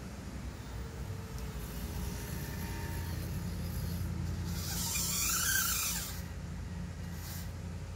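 Small electric motors and gears of a radio-controlled, converted Bruder mini excavator toy whirring over a steady low hum as the boom moves. The whirring swells louder for about a second, around five seconds in, as the upper body slews around.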